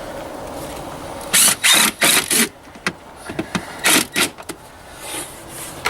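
Cordless impact driver run in several short bursts, driving screws.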